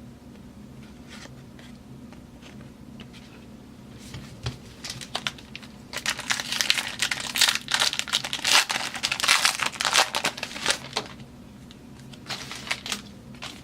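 Wrapper of a pack of football cards being torn open and crinkled. The crackling starts about four seconds in, is dense and loudest for the next several seconds, and tails off, with a few more crinkles near the end.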